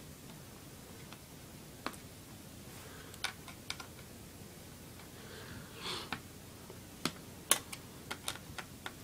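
Light, scattered clicks and ticks of a small screwdriver working screws out of the metal plate in an Acer laptop's keyboard bay, with a short scrape about six seconds in and a quick run of clicks near the end.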